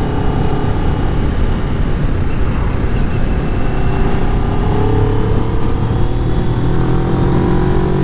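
Kawasaki Ninja 400's parallel-twin engine running as the motorcycle rides along, with wind rushing over the microphone. The engine note climbs steadily in pitch through the second half as the bike accelerates.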